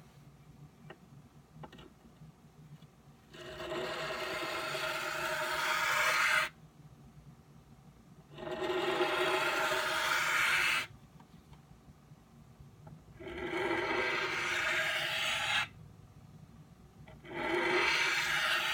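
Knife blade drawn along the fine side of an oiled Norton bench stone: four long scraping strokes of two to three seconds each, with short pauses between, each stopping abruptly. These are the final passes on an edge that is nearly finished.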